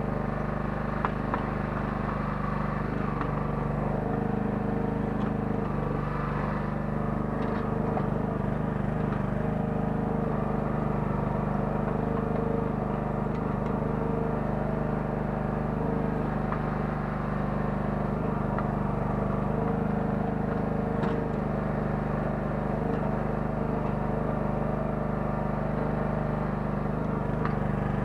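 9 hp engine of a Kellfri towable mini excavator running at a steady speed while it digs, with a few short knocks.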